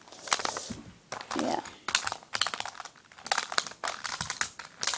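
Plastic twisty puzzle cubes clicking and clattering in irregular clusters as they are handled and set down close to the microphone.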